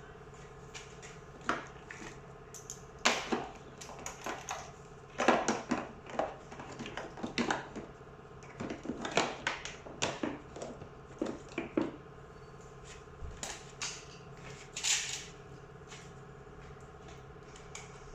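Tumble dryer parts being handled during assembly: irregular clicks, knocks and light clatter of panels and fittings being moved and fitted, over a steady background hum.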